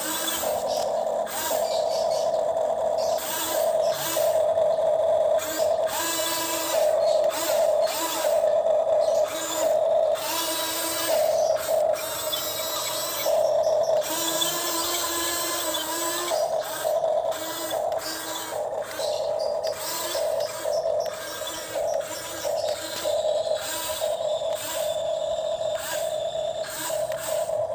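Small electric motor of a toy excavator whining in repeated short on-off bursts, with gears whirring as it is driven.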